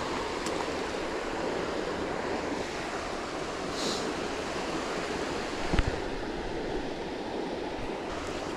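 Steady rush of water flowing through a dam spillway runoff, with a single low thump about six seconds in.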